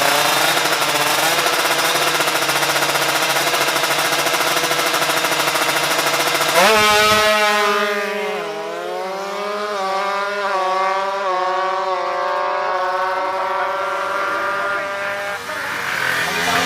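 Tuned Kawasaki Ninja two-stroke motorcycle engine bored to 155 cc, running at high revs. The note holds steady at first, then changes suddenly about six and a half seconds in and rises and wavers up and down with the throttle.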